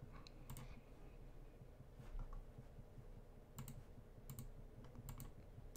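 Faint, scattered clicks of a computer mouse and keyboard, some single and some in quick pairs or triplets.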